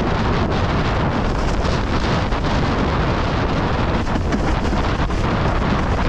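Strong wind buffeting the microphone in high wind: a loud, steady rushing noise over a deep rumble.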